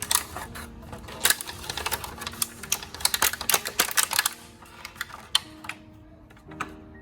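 A rapid, irregular run of crisp clicks and taps from kitchen food preparation, thinning out after about four and a half seconds to a few scattered taps, over soft background music.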